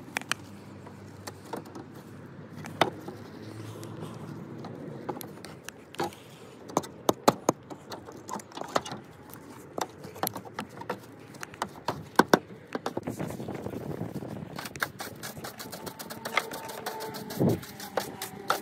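Irregular sharp taps and clicks of hand tools working lead step flashing against brickwork, coming thick and fast in places.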